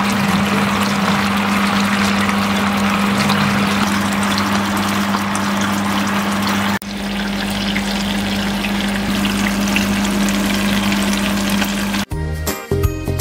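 Teriyaki sauce sizzling and bubbling around chicken pieces in a frying pan as it reduces to a thick glaze, with a steady low hum underneath. The sound breaks off briefly about seven seconds in and picks up again. Light background music takes over near the end.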